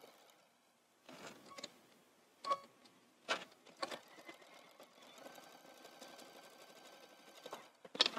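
Computerised sewing machine stitching a folded hem: a few short stop-start spurts, then a steady run of about two and a half seconds that stops shortly before the end.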